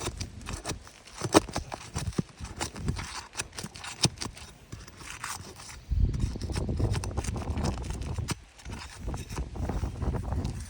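A hammer scraping and knocking against asphalt shingles and roofing nails as the nails are worked loose, with scattered sharp metal clicks. The loudest click comes about a second and a half in. A low rumble runs through the middle for a couple of seconds.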